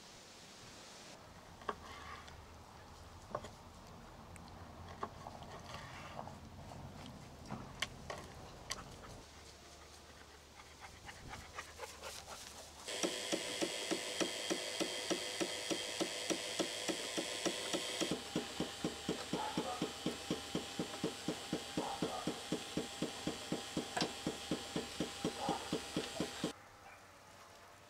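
A knife cutting liver on a wooden cutting board, with scattered taps of the blade on the board. About halfway through, a rotisserie spit's drive mechanism starts clicking evenly, about three times a second, with a hiss behind it at first; it stops shortly before the end.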